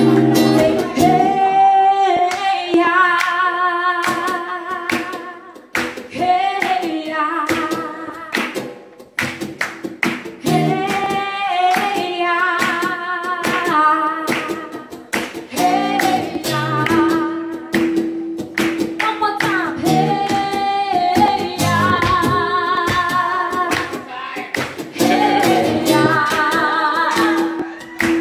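Woman singing live into a microphone in long phrases with a wavering vibrato, over sharp hand claps keeping the beat.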